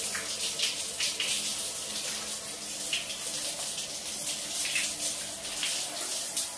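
Shower running: water spraying and splattering onto a tiled bathroom floor, a steady hiss broken by irregular splashes.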